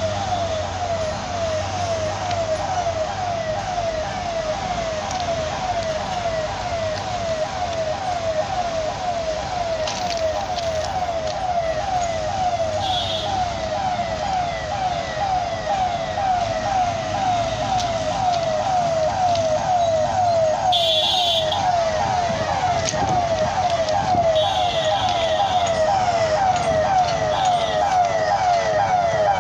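A warning siren sounding without a break, a fast run of short falling tones repeating evenly, typical of a railway level-crossing alarm. A few short, high-pitched horn toots sound over it about halfway through and again near the end.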